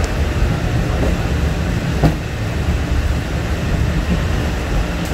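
Hong Kong Peak Tram funicular car running, a steady low rumble with a single knock about two seconds in.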